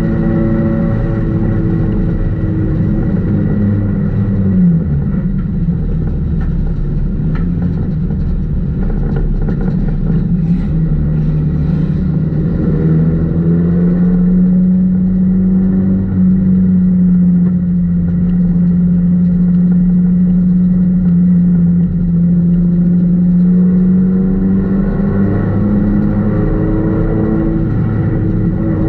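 Four-cylinder Econo4 race car engine running hard, heard from inside the stripped cabin. Its pitch drops as the driver lifts for a turn about five seconds in. It climbs again a little before the middle, holds high and steady along the straight, then dips and rises once more near the end.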